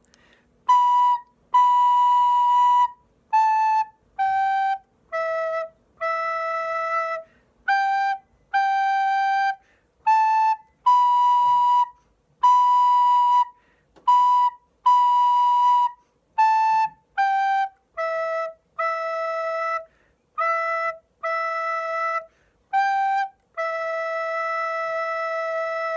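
Soprano recorder playing a slow, simple melody on the notes B, A, G and E, each note tongued separately with short breaks between, ending on a long held E.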